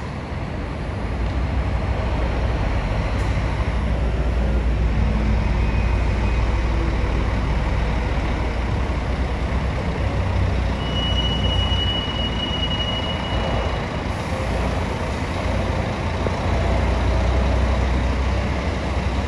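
Scania K400 bus chassis's rear-mounted six-cylinder diesel engine running as the double-decker coach pulls away, a steady deep rumble that swells about a second in and stays loud. A thin, steady high-pitched tone sounds for a couple of seconds about eleven seconds in.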